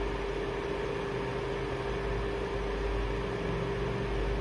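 Steady background hiss with a constant low hum running under it.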